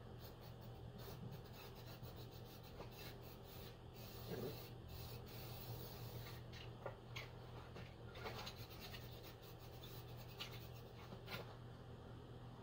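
A rag wiping and rubbing over a metal disc in short intermittent strokes, over a faint steady low hum.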